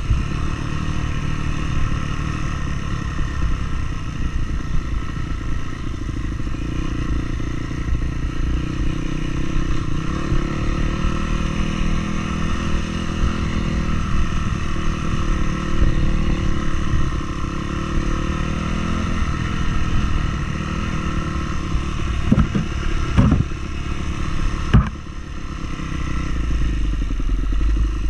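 A vehicle engine running steadily on a mountain trail, with a few sharp knocks and clatter about three-quarters of the way through, after which the sound briefly drops.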